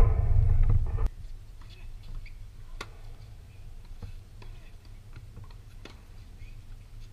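Tennis ball struck by racquets during a rally: sharp pops a few seconds apart, the clearest about three seconds in and again near six seconds. A brief voice over a low rumble fills the first second.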